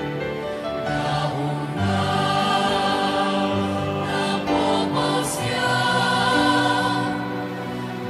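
Choir singing a Catholic hymn, several voices holding sustained chords that change every second or two.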